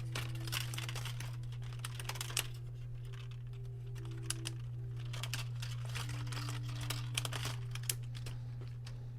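Irregular small clicks and taps of hands and tools handling the plastic parts of a disassembled laptop, over a steady low hum.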